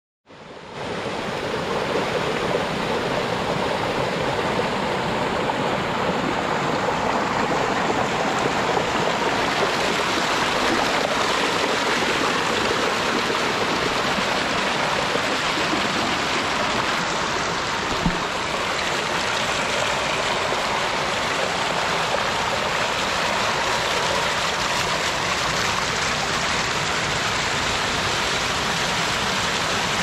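A spring-fed mountain creek running full, a steady rush of water at a best-guess flow of about 150 gallons a minute. It fades in at the start.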